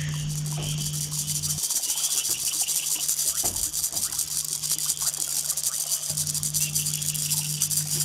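Fast, even rustling and scratching made of many small clicks a second, over a low steady hum that drops out from under two seconds in until about six seconds in.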